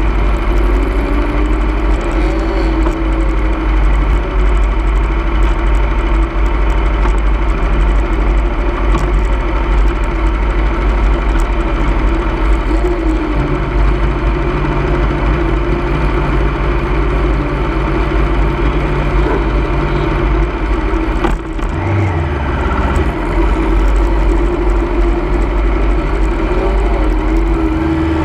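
Sport-bike engines idling in a waiting line, the nearest the 2010 Aprilia RSV4's V4 ticking over steadily, with a deep rumble underneath.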